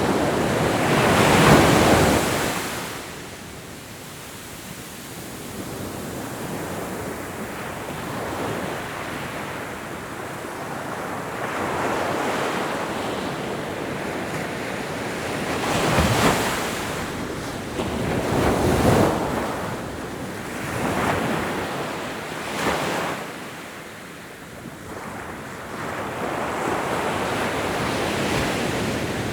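Ocean waves breaking and washing up on a shore, a rushing surf that swells and falls. The loudest break comes a second or two in, followed by several smaller surges.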